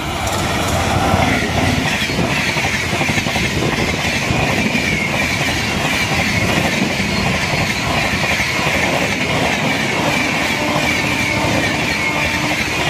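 Indian Railways express passenger train hauled by a WAP-7 electric locomotive passing close by at speed. The locomotive goes by about a second in, then the coaches follow with a steady rush and a clickety-clack of wheels over the rail joints, under a high whine.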